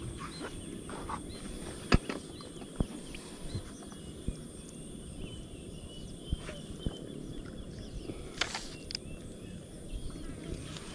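Open-air ambience: faint bird chirps over a steady high insect drone, with a few sharp clicks and taps, the loudest about two seconds in.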